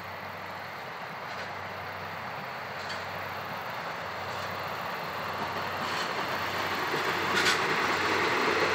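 Diesel-hauled passenger train behind a DD51 locomotive running past, growing steadily louder as it nears. Its wheels click over rail joints about every second and a half.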